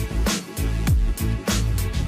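Background music with a steady beat: deep electronic kick drums and crisp hi-hats.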